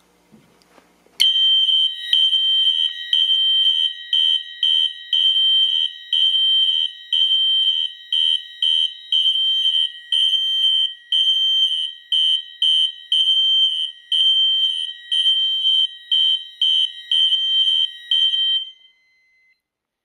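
Several fire alarm horns and sounders on one system go off together about a second in, in full alarm after the manual pull station is pulled. They make a really ear-piercing, loud, high-pitched electronic beeping in overlapping rhythms over a steady tone, and all cut off near the end.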